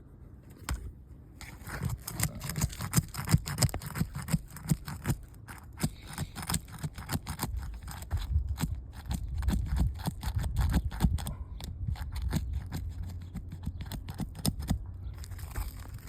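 Rapid, irregular scraping and crackling of asphalt roof shingles being pried and worked loose, over a low rumble.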